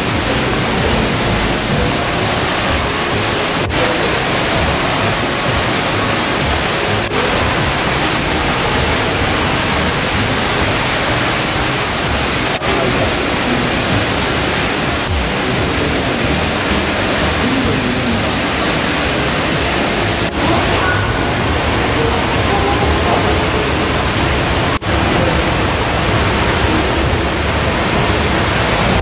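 Steady, loud rushing of falling water, an even hiss with no rhythm, dipping briefly now and then.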